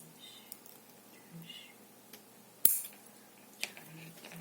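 Light clicks and taps of small hard objects being handled at a work table, with one sharp, loud click about two-thirds of the way through.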